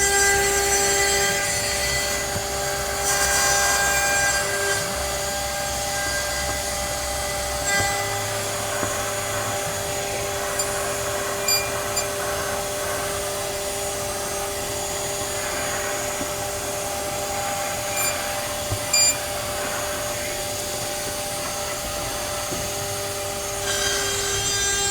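CNC router spindle running steadily with a held whine while the bit cuts pine, with a second steady tone that stops near the end and a few brief ticks.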